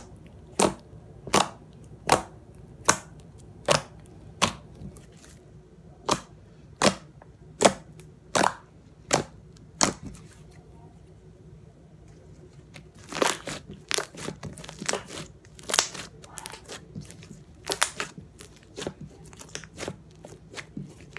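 Thick cream-cheese-texture slime mixed with Daiso clay being pressed and poked on a tabletop, giving sharp popping clicks. The pops come evenly, about one every three-quarters of a second, then after a short pause a faster, irregular run of pops follows.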